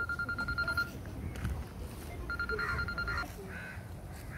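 Crows cawing about four times. A high, rapidly pulsing trill sounds twice, each time for about a second.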